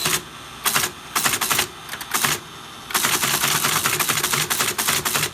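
Teletype Model 33 teleprinter printing in rapid mechanical clatter: several short bursts, then a continuous run of about two seconds near the end, with a steady low hum underneath between bursts. The machine is still not working correctly.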